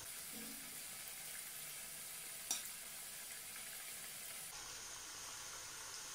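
Samosas deep-frying in hot coconut oil: a steady, high-pitched sizzle, with one short click about two and a half seconds in.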